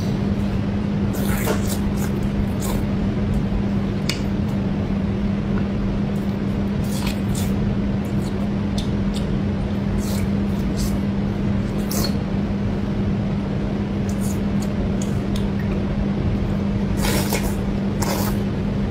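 A person eating spicy noodles and meat: short wet mouth clicks and chewing smacks over a steady low hum, with a longer, louder slurp of noodles near the end.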